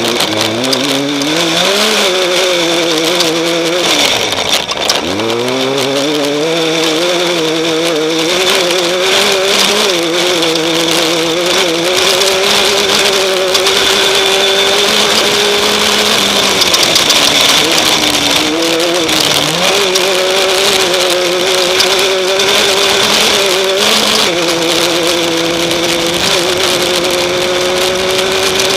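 Off-road race vehicle's engine heard from on board under hard running: it revs up, drops sharply about four seconds in and climbs again, then holds a fairly steady high pitch with small dips and rises, over a constant rush of wind and road noise.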